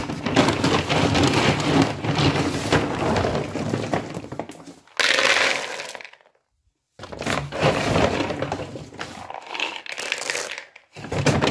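Dry dog kibble being scooped and poured into a plastic bowl, a dense crackling rattle of pellets. It breaks off for about a second halfway through, then starts again.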